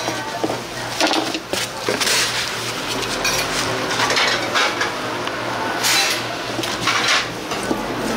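Kitchen clatter of dishes and utensils: scattered clinks and knocks and a few short noisy swishes over a steady low hum.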